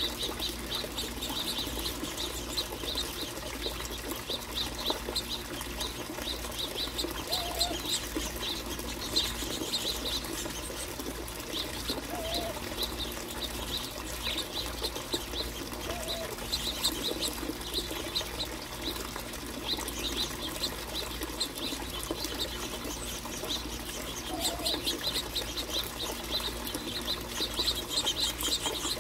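Finches chirping in a steady run of short, quick notes, with wings fluttering as birds come and go.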